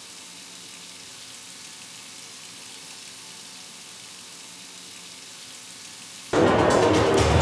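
A steady hiss of noise. About six seconds in, loud electronic music with strong bass cuts in abruptly.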